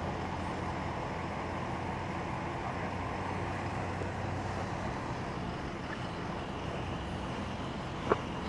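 Steady low hum of emergency vehicles idling, with one brief click near the end.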